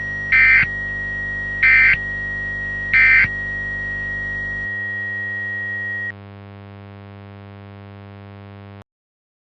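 Emergency Alert System end-of-message signal: three short, loud digital data bursts about 1.3 seconds apart, over a steady high tone and a low electronic buzzing drone. The drone changes about halfway through, the high tone stops, and a quieter buzz carries on until it cuts off abruptly near the end.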